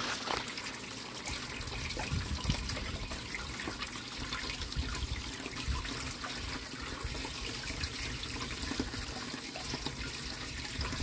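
Water running and trickling in a homemade polypropylene sieve filter box as it fills to the top of its internal dam wall and begins to flow over it.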